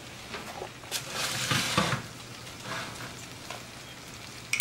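Cutlets sizzling in hot oil on a baking tray just pulled from the oven. There is a click about a second in, then about a second of louder hissing sizzle, then a fainter steady sizzle. Near the end a metal spoon clinks against a glass.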